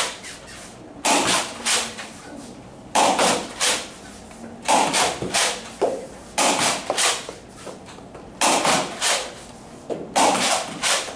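Nerf Rival Artemis blaster pumped and fired again and again: short clusters of sharp plastic clacks and pops, about one every two seconds, six times over.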